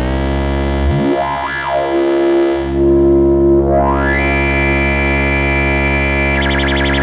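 Musonics Vanilla 5U modular synthesizer holding a low, buzzy sustained note while a knob is turned. A bright resonant peak sweeps up and back down about a second in, rises again about four seconds in and stays up. A fast flutter comes into the upper range near the end.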